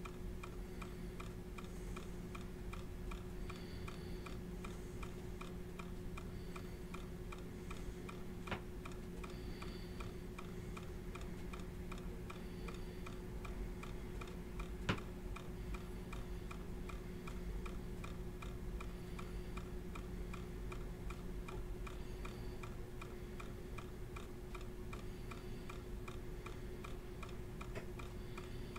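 Rapid, even ticking over a low steady hum, with two sharp clicks, the louder one about halfway through.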